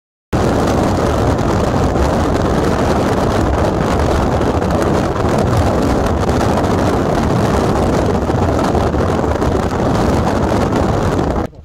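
Steady road and wind noise of a car moving at highway speed, heard from inside the cabin. It starts abruptly just after the beginning and cuts off near the end.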